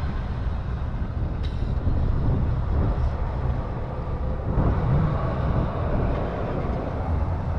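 Can of Fix-a-Flat tire sealant hissing steadily as it empties through the valve stem into the flat tire, over a steady low rumble.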